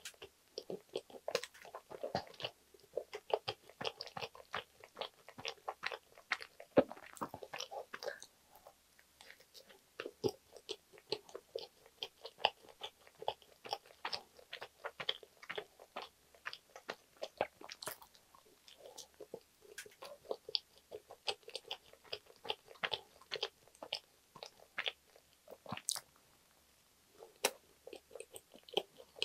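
A person biting and chewing a soft cheese sandwich, a dense, uneven run of small mouth clicks and smacks, with a short pause near the end.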